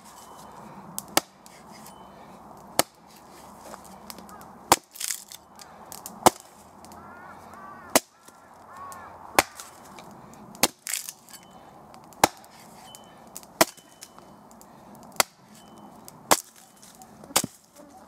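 A hatchet striking a dry standing dead trunk, about a dozen sharp chopping blows a second or so apart, splitting off dry chips for kindling.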